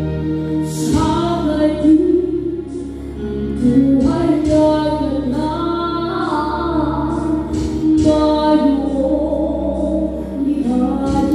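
A woman singing a slow song into a microphone with sustained, gliding notes and short pauses between phrases, over instrumental backing music with a steady bass.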